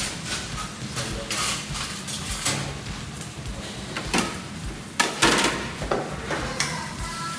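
Metal kitchen utensils clattering: a steel ladle taken from a steel utensil holder, then knocking and scraping against a wok. The loudest clanks come about five seconds in.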